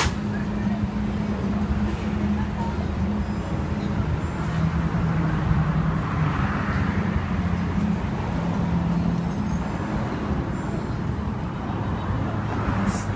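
Steady low hum of street background noise, its pitch stepping down and back up a few times, with a soft hiss rising around the middle and again near the end.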